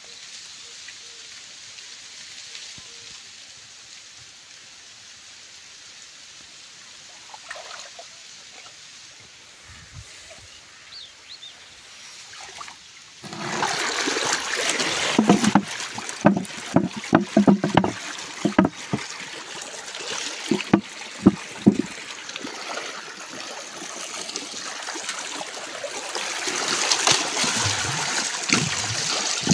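Irrigation water running through a small concrete field channel. Faint for the first dozen seconds, then the water noise comes in suddenly about thirteen seconds in, with a run of irregular thumps, and grows louder again near the end as the channel fills with foaming, muddy water.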